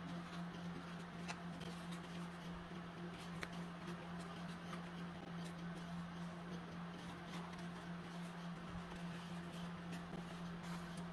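A sheet of paper being rolled into a cone and taped by hand: soft paper rustling with a few light clicks, over a steady low hum.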